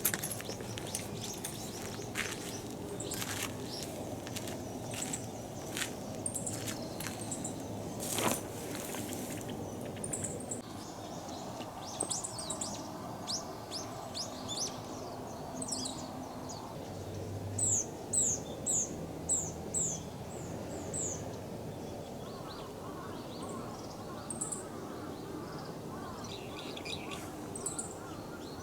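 Small bird chirping, with scattered high chirps and a run of about six sharp falling chirps some eighteen to twenty-one seconds in, over a steady low background rumble.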